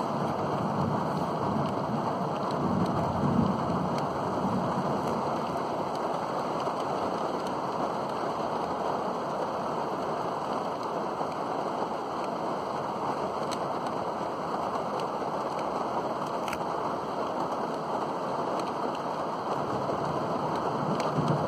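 Steady heavy rain, a dense even hiss, with a low rolling rumble of thunder in the first few seconds and again near the end.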